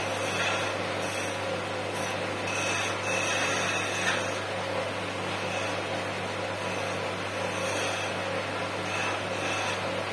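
Wood lathe running with a steady motor hum while a hand-held chisel cuts the spinning wood blank. The cutting noise swells and fades in short passes as the tool is worked along the piece.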